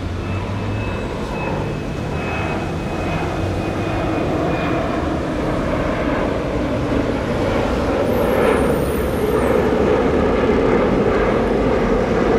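Jet noise of an Embraer 195 airliner climbing out after takeoff, its two General Electric CF34 turbofans making a steady rushing noise that grows gradually louder.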